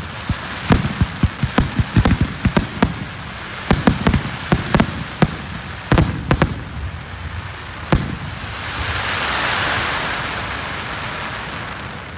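Aerial fireworks bursting in a rapid, uneven run of sharp bangs, several a second. About two-thirds of the way in the bangs stop and a broad rushing hiss swells up and slowly fades.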